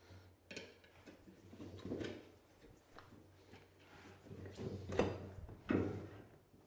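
Tire-changing work on a motocross wheel: a few knocks and scraping strokes, the loudest about five seconds in, over a faint steady hum.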